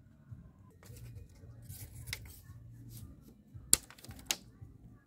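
Split bamboo strips knocking and clacking together as they are handled and laid side by side on the ground: a few scattered light knocks, the sharpest about three-quarters of the way through with another half a second later, over a low steady hum.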